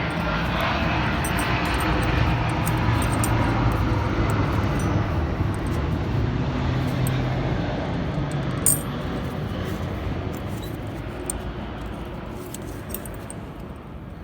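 Light metallic clicks and clinks of new brake pad retaining clips being fitted into a caliper carrier, with one sharper click about two-thirds of the way through. Under them a steady engine-like rumble that slowly fades near the end.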